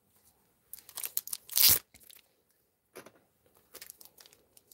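Crinkly card packaging being handled and torn open: a burst of crinkling and tearing about a second in, then lighter crinkles near the end.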